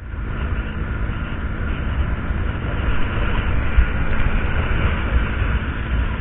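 Steady wind rush and road noise on a motorcycle-mounted action camera at highway speed, low and rumbling, with the KTM Duke 200's single-cylinder engine running under it.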